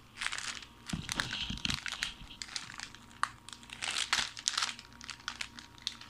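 Plastic packet of roasted seaweed sheets crinkling as it is handled and turned over, in irregular crackling bursts with sharp clicks, plus a few dull bumps between one and two seconds in.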